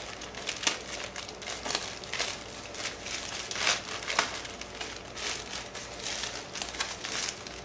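Plastic packaging crinkling and rustling with irregular crackles as kit parts are unwrapped and handled.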